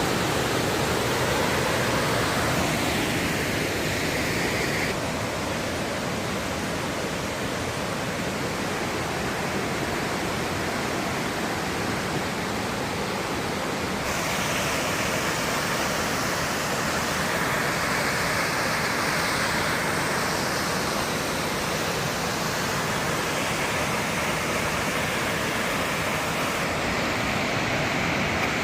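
Waterfall water rushing in a steady, even noise, its tone shifting slightly a few times.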